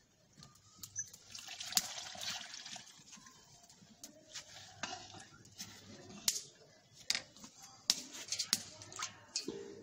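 Metal ladle stirring a pot of liquid kadhi in a metal kadai, clinking against the pan with liquid sloshing and scattered sharp clicks.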